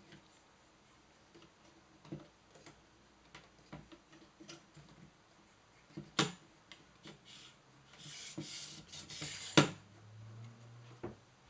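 Light plastic clicks and rubbing from a Hama 75 tripod's pan-tilt head as it is handled and adjusted. A rasping stretch starts about eight seconds in and ends in one sharp snap, the loudest sound.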